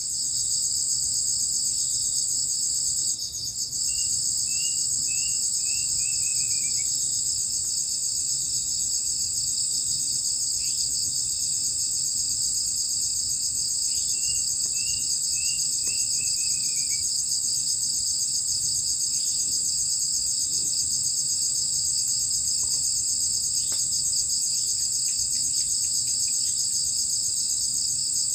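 Dense, steady chorus of night insects, crickets trilling. Twice, about ten seconds apart, a bird calls a short run of six or seven quick notes that fall in pitch.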